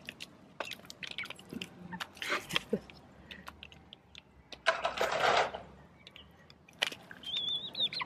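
Pullets pecking grain feed from a plate: a quick, irregular run of sharp beak taps and crunches. A short rustling burst comes about five seconds in, and a brief high, wavering tone near the end.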